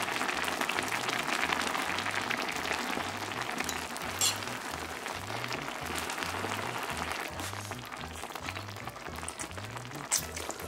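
Shrimp soup bubbling and crackling in an earthenware ttukbaegi pot after the heat has been turned off, still boiling on the pot's retained heat and dying down over the last few seconds. A sharp click about four seconds in. Soft background music with a repeating bass line sits underneath.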